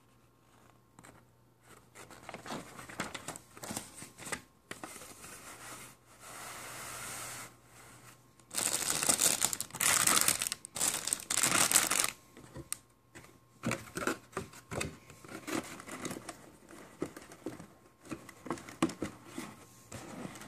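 Plastic model kit handling: a paper instruction sheet rustles at first, then the clear plastic bags around the kit's parts runners crinkle loudly in several bursts around the middle, followed by lighter scattered rustles and taps.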